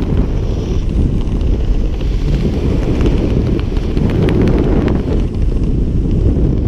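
Wind buffeting an action-camera microphone during descent under an open parachute canopy: a steady low rumble with scattered faint crackles.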